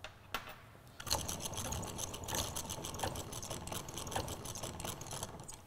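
The wheel of a home-made wooden hand generator being spun by hand: a whirring, rattling run of rapid clicks that starts about a second in and fades near the end.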